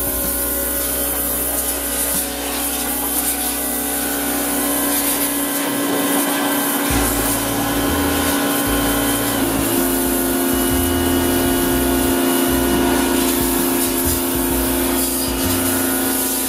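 Pressure washer running steadily, its motor and pump humming under the hiss of the high-pressure water jet on a steel gate. The hum steps up slightly in pitch a little past halfway.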